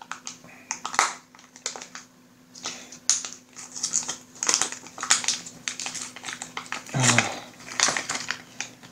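Plastic packaging bags of board-game miniatures crinkling and crackling as they are handled, in irregular sharp bursts.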